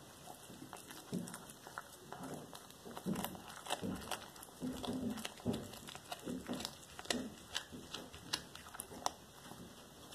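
A black tabby cat chewing a whole raw rat: wet mouth sounds and many sharp clicks of teeth on flesh and bone, coming thickest in the middle.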